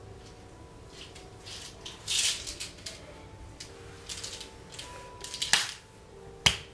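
A small plastic pill bottle being handled at a counter: scattered clicks and rattles over faint room tone, a louder rattle about two seconds in and sharp clicks about five and a half seconds in and again near the end.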